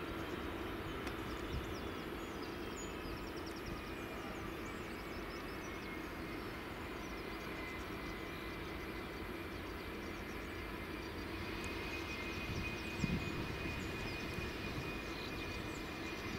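Boeing 757's twin jet engines running steadily as the airliner rolls along the runway after landing. A high engine whine fades and then comes back stronger in the last few seconds. A short thump comes about 13 seconds in.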